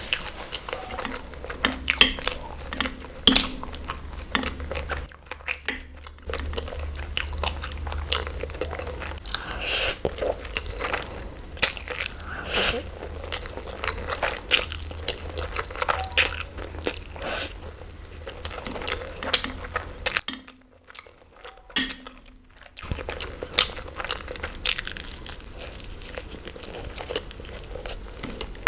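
Close-miked eating: a person chewing and crunching food with many irregular wet mouth clicks and crackles. The eating pauses briefly twice, about five seconds in and again about twenty seconds in.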